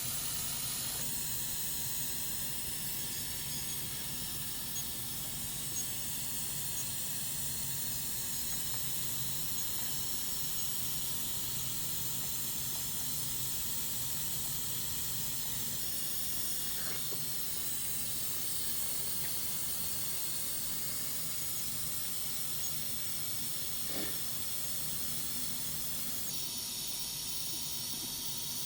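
Steady high-pitched hiss with a few faint ticks.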